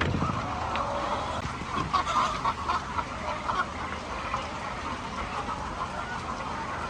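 A flock of laying hens calling, many short overlapping clucks and squawks forming a steady chorus.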